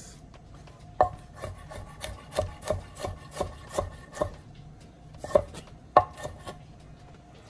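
Chef's knife chopping tomatoes on a wooden cutting board: a steady run of knocks of the blade on the board, about three a second, then a short pause and a few sharper strikes near the end.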